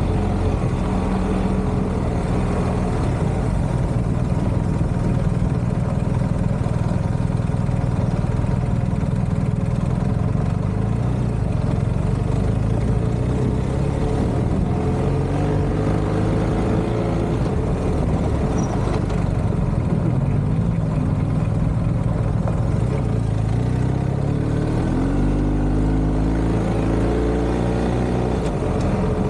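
BMW R1250GS boxer-twin motorcycle engine running under way on a dirt track, its pitch rising and falling with the throttle, with rising runs as it accelerates partway through and near the end. Steady wind and road noise lies under it.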